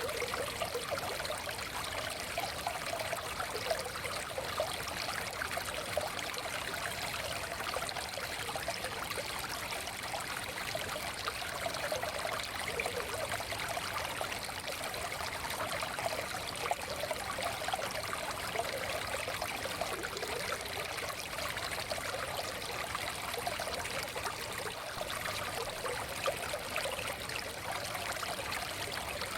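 A forest stream flowing steadily over stones, a continuous babbling and trickling of water with no pauses.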